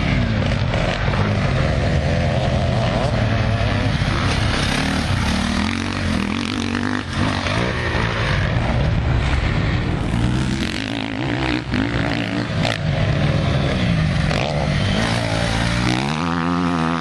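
Motocross bike engines revving hard, their pitch rising and falling again and again as the throttle is opened and closed.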